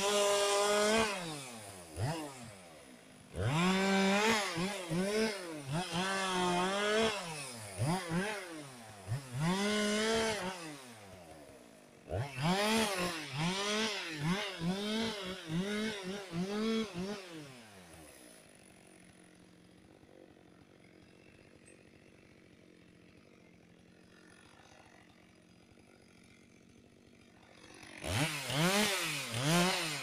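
Two-stroke chainsaw revving up and down in quick repeated bursts, as when limbing a felled tree. About two-thirds of the way through it drops to a quiet idle for roughly ten seconds, then revs again in bursts near the end.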